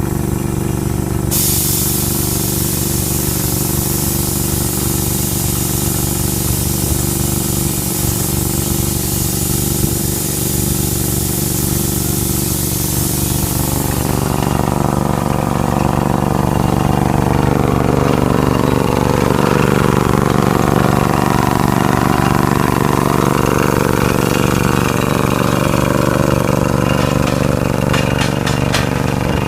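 MK5 drilling rig running, its engine giving a steady drone. A loud hiss over it stops about halfway through, after which a wavering higher whine rises and falls, with a few sharp clicks near the end.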